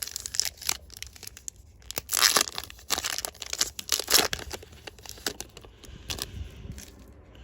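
A trading-card booster pack's foil wrapper being torn open and crinkled by hand, in irregular rustling bursts, loudest about two and four seconds in.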